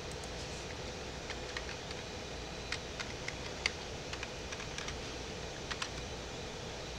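Sparse, irregular computer keyboard and mouse clicks, a dozen or so scattered taps, over a steady background hum.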